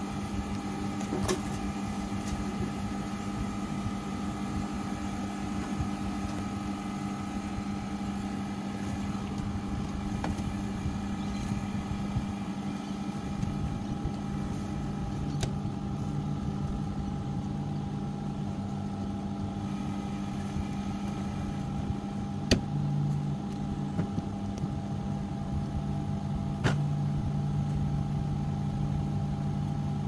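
Carrier 38QCA065 air conditioner outdoor unit running with a steady hum, with a few sharp clicks, the loudest about two-thirds of the way through. The system is a little short of refrigerant, and its compressor is running hotter than it should.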